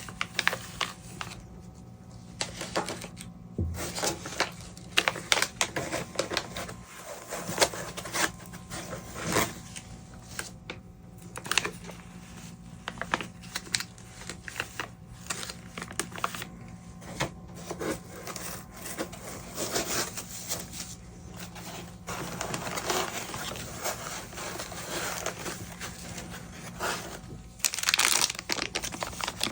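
Plastic packaging being unwrapped and handled close to the microphone: irregular crinkling and rustling with light clicks and taps, thickest in two stretches near the end.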